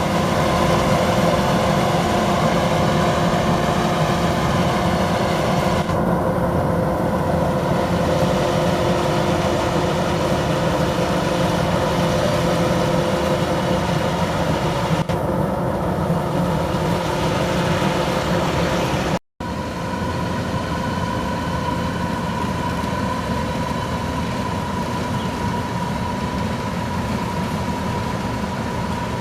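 Kubota DC93 combine harvester running steadily under load, a constant engine and machinery drone with several steady whining tones, as it harvests slowly through a lodged, flattened crop. The sound cuts out for an instant about two-thirds of the way through and resumes with the higher whine slightly stronger.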